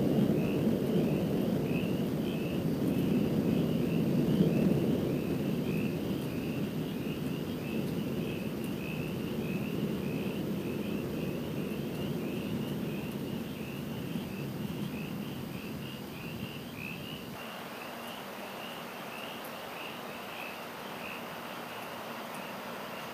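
Distant thunder rolling: a long low rumble, loudest at first, that slowly fades and drops away about three quarters of the way through. A high, evenly repeating chirping goes on behind it.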